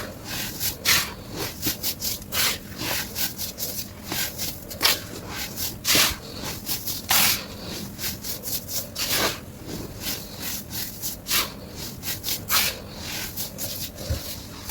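Pressed white baking soda being crushed, sped up: an irregular run of short, dry crunches and scrapes, a few each second.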